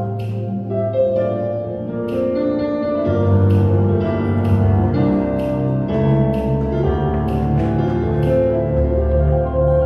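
Upbeat pop dance music playing, with held keyboard-like tones over a bass line and sharp percussive hits.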